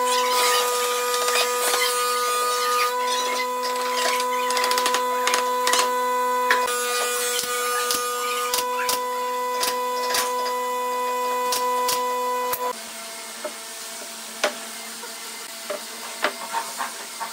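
Hammer blows and pneumatic nail gun shots into a wooden crossbar, many sharp knocks and taps over a steady hum that stops about thirteen seconds in, after which only scattered knocks remain.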